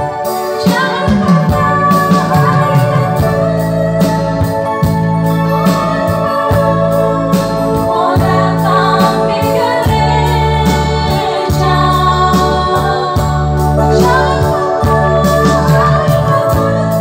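A woman singing into a microphone, accompanied by an electronic keyboard playing held chords over a steady bass line.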